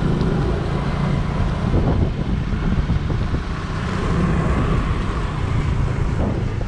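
Wind rushing over the action camera's microphone, with a vehicle engine running underneath.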